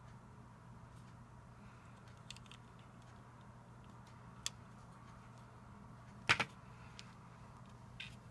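Lego plastic pieces being handled and pressed together: scattered light clicks and taps, the loudest a quick double click about six seconds in, over a faint steady hum.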